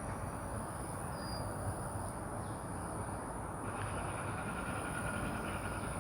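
Steady low rumble of outdoor background noise, with a faint steady high whine.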